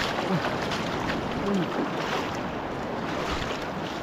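Shallow river water rushing and splashing as a wading person lifts a cast net, heavy with water, up out of the stream.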